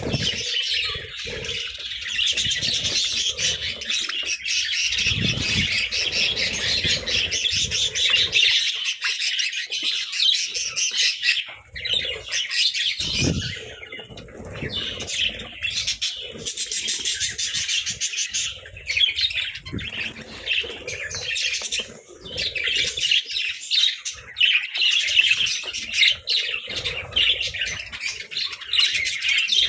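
A flock of budgerigars chirping and chattering continuously in many overlapping high-pitched calls, with a couple of low thumps, about five seconds in and near the middle.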